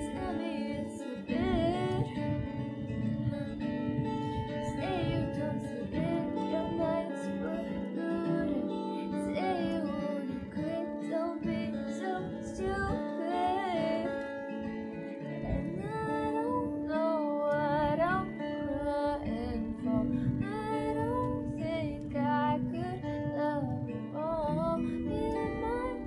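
Background song: guitar accompaniment with a woman singing a melody over it.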